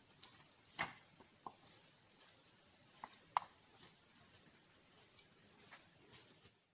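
Faint steady chirring of insects, with a few sharp clicks or knocks, the loudest about a second in and another a little past the middle.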